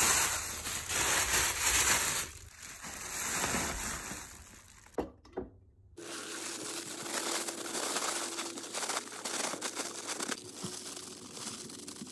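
Thin plastic bag crinkling and rustling as it is crumpled and handled. It is loudest in the first couple of seconds, drops away briefly about six seconds in, then goes on more softly.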